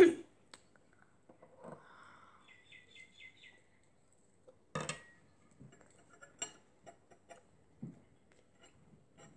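Quiet eating sounds: faint chewing and a few sharp clicks of a metal knife and fork, the loudest a little under five seconds in. A short run of high chirps sounds around three seconds in.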